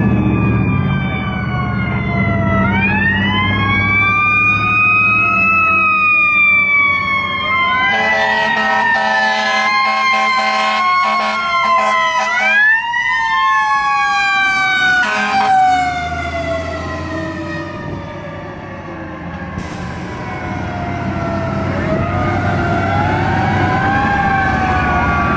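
Sirens on fire apparatus responding: several wailing sirens rising and falling over one another, with a stretch of rapid pulsing about eight to twelve seconds in. The rumble of the trucks' engines is under them as they pass.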